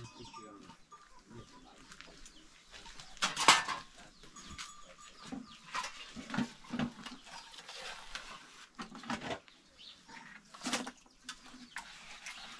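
Knocks and clatter of a metal pail being handled by a fire pit, with one sharp knock a few seconds in, while goats bleat now and then in the background.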